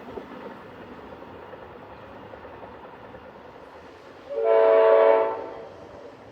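Amtrak passenger locomotive horn sounding one blast of about a second, roughly four seconds in, over the steady rumble of the train.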